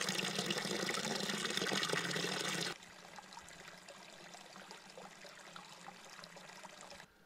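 Water pouring from a metal pipe spout and splashing into a concrete water trough, loud and close. About three seconds in it becomes quieter and more distant.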